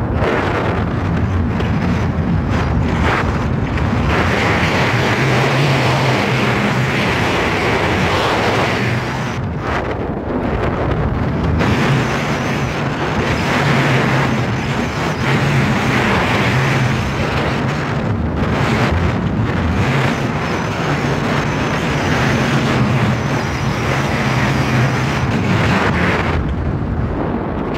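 Wind rushing over the microphone of an Inmotion V11 electric unicycle ridden at full speed on a rough trail: a loud, steady rush. A low hum sits underneath and drops out briefly a few times.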